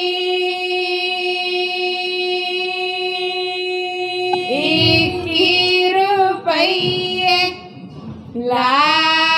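A female voice singing a Punjabi ghodi wedding folk song in the long-drawn 'hek' style: one note held steadily for about four seconds, then the melody moves on through the words, with a short breath near the end before the next line begins.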